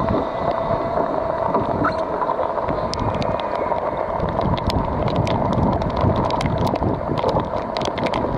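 Homemade 12-volt bilge pump running, pushing rainwater out of the flooded boat through a hose hooked over the side, with water gushing and splashing into the lake. There is a steady wash of wind on the microphone, and from about three seconds in, scattered sharp ticks.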